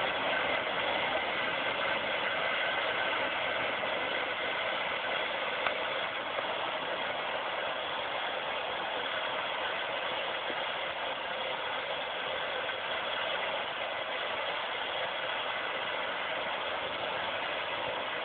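Light aircraft engine and airflow heard inside the cockpit during the approach to land: a steady, even drone with no change in power.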